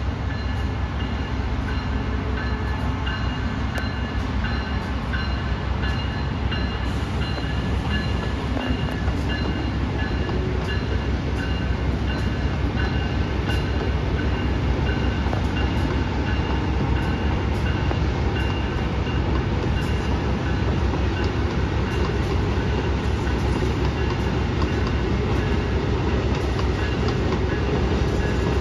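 Amtrak passenger train behind an ACS-64 electric locomotive rolling slowly through the rail yard: a steady rumble with faint high tones that come and go above it.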